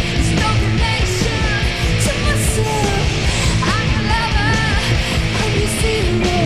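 Rock music soundtrack with electric guitar, playing steadily.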